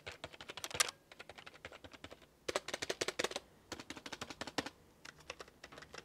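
Typing on a traditional office keyboard: quick runs of key clicks in several bursts with short pauses between them, heard from a microphone about 20 cm from the keys.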